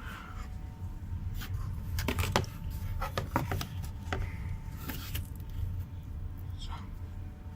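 Bosch washing machine starting up: a steady low hum with a faint steady whine, broken by a series of irregular clicks and knocks.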